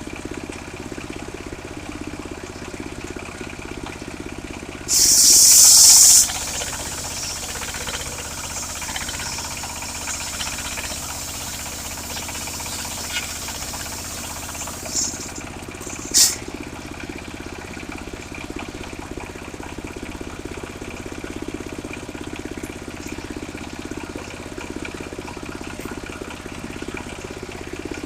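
Engine of a portable circular sawmill running steadily, with a loud hissing burst lasting just over a second about five seconds in and two short sharp hisses a little past the middle.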